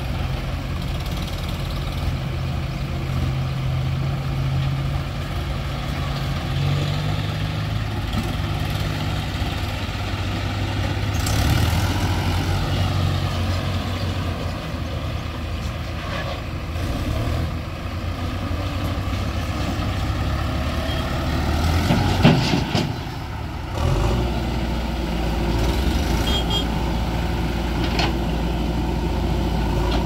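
Diesel engines of a JCB 3DX backhoe loader and a farm tractor running, their note rising and falling as the machines work, with a sharp loud knock about two-thirds of the way through.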